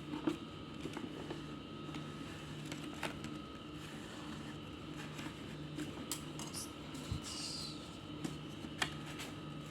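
Room tone: a steady low hum with a few faint scattered clicks and rustles.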